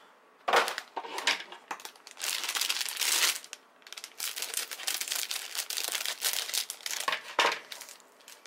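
Clear plastic polybags holding plastic model-kit runners crinkling and rustling as they are handled. The crinkling comes in irregular bursts, with a short pause about four seconds in.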